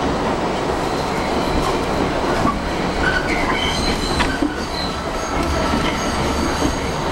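New York City subway 7 train running on elevated track, heard from inside the car: a steady rumble of wheels on rail. Thin, high squealing tones from the wheels come in about three seconds in.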